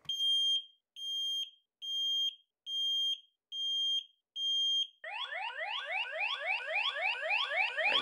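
Ceiling smoke alarm sounding its test alarm: six evenly spaced, high-pitched piercing beeps. About five seconds in, a different electronic alarm takes over, a quickly repeating rising whoop, as the X-Sense listener system relays the smoke alarm.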